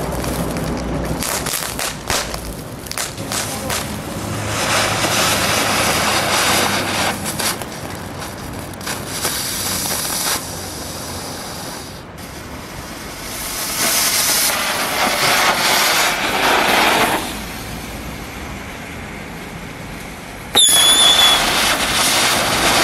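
Novelty ground fireworks shaped like little vehicles hissing as their spark jets drive them along the pavement, in several separate runs with quieter gaps between them. Near the end one starts with a sudden louder burst and a brief high whistle.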